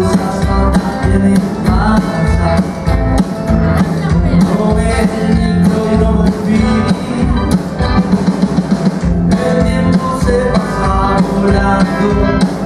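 A live rock band playing loud: upright double bass, red hollow-body electric guitars and a drum kit beating a steady rhythm, with a man singing into the microphone.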